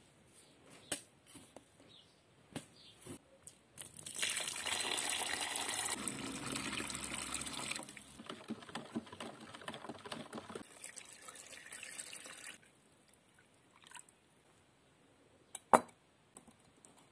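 Water poured into a plastic bucket of salt for about four seconds, making a saltwater solution, followed by several seconds of small irregular clinks and scrapes of a metal spoon in the bucket. Near the end comes a single sharp knock.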